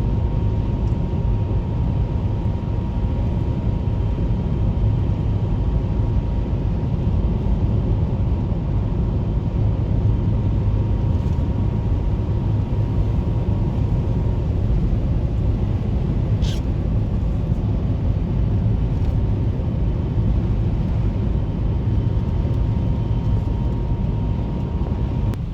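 Steady low rumble of a car being driven, heard from inside the cabin: road and engine noise, with a faint steady high tone running under it until near the end.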